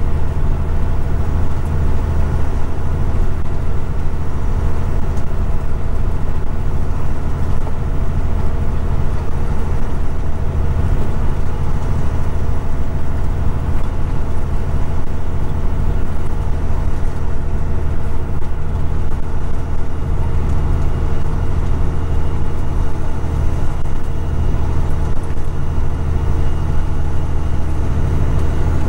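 Kenworth road train's diesel engine running steadily at highway cruise: a constant low drone with road noise, unchanging throughout.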